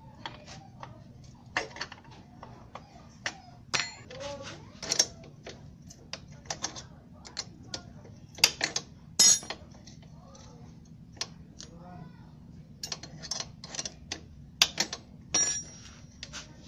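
Irregular metallic clicks and clinks of a motorcycle's roller drive chain and rear-axle adjuster hardware being handled by hand.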